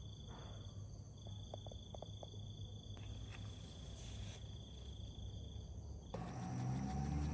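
A steady high-pitched ringing drone made of several even tones, over a low hum. About six seconds in, music with a regular beat comes in suddenly and is louder.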